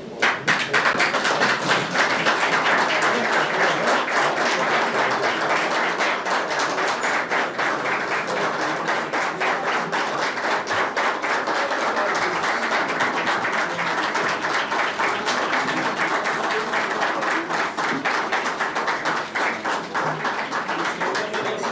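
Applause: many people clapping continuously, fading slightly near the end.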